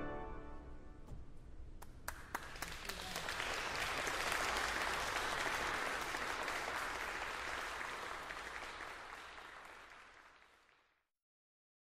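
Concert audience applauding after a pipe organ's final chord reverberates away: a few scattered claps about two seconds in swell into full applause, which then fades out and is cut off to silence near the end.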